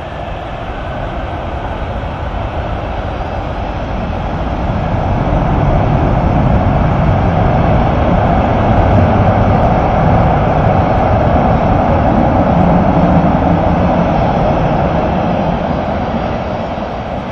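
Airbus A380 jet noise: a steady rumbling roar that builds over the first few seconds, holds, and eases off near the end.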